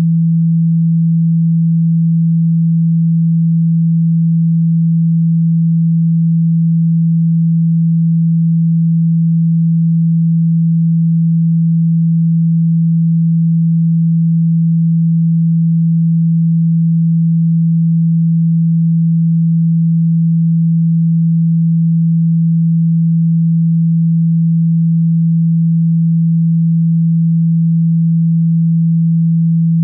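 A single steady, low-pitched pure tone, unchanging in pitch and loudness. It is a speaker-cleaning tone, played to vibrate water, dust and dirt out of a phone speaker.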